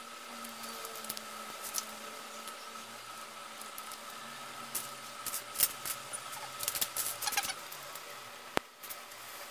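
Plastic Lego bricks clicking and rattling as they are handled and pressed together: scattered small clicks, a denser run about seven seconds in, and one sharp click near the end. A faint steady hum runs underneath.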